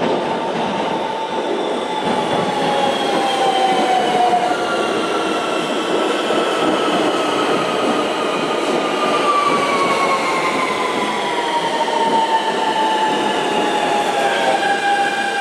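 New York City Subway Q train braking into a station: a whine of several tones falls slowly and steadily in pitch as the train slows, over the loud rumble of the cars on the rails.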